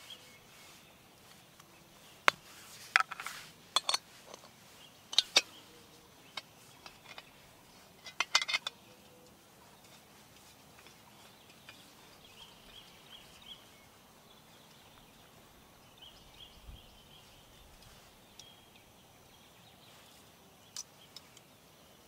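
Sharp plastic and metal clicks and rattles as the cap is pried off a screw-top gas canister and a small canister stove is handled and fitted to it, loudest in two bunches in the first nine seconds, then only a few light clicks.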